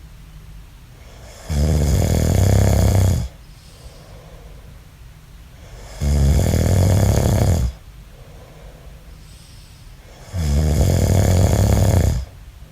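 A man snoring: three snores about four and a half seconds apart, each lasting a little under two seconds, with quieter breaths out between them.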